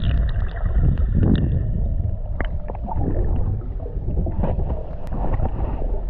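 Muffled low rumble and gurgling of freshwater moving around a camera being taken into a cenote, with scattered small clicks.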